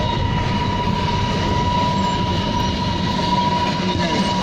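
Steady rumble and rattle of a moving vehicle, heard from inside, with a thin steady whine held throughout.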